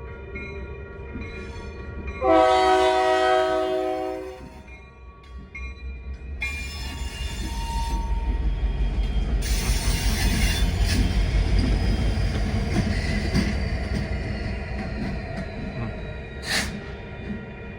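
Train horn blowing one chord-like blast of about two seconds, then a train passing close with a heavy rumble of wheels on rail, loudest midway, with high-pitched wheel squeal and a short sharp squeal near the end.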